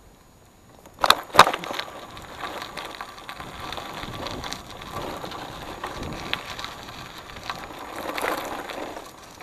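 Bicycle tyres crunching steadily over loose gravel as the bike rolls along, with two sharp knocks close together about a second in as it bumps onto the gravel.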